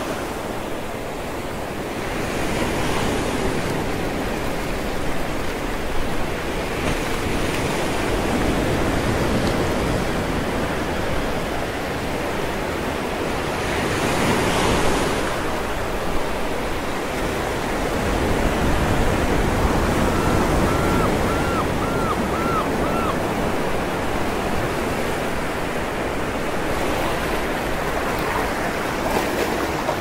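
Mediterranean surf breaking against a rocky shore: a steady wash of sea noise that swells several times as waves strike the rocks and throw up spray, loudest about fifteen seconds in. A brief run of about six faint high chirps sounds about twenty seconds in.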